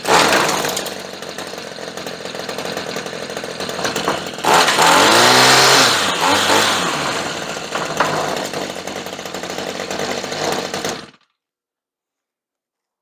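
Redmax string trimmer's small two-stroke engine running, now that its nearly closed spark plug gap has been re-set. It comes up sharply at the start, is revved once about four and a half seconds in with the pitch rising then falling, and cuts off suddenly near the end.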